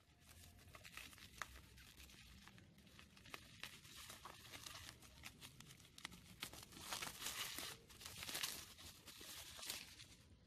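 Plastic bubble wrap being cut open with scissors and pulled off a small box: crinkling and rustling with scattered sharp clicks, loudest about two-thirds of the way through.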